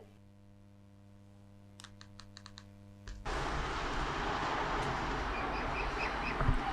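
A quick run of light clicks, like keys being tapped, over a low hum; then, about three seconds in, a steady outdoor wind-like noise starts abruptly.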